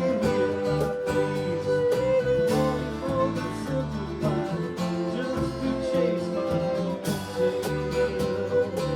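Live country string band playing a passage of the song: strummed acoustic guitars, a walking bass line and regular percussion taps, with a long held melody note running over them.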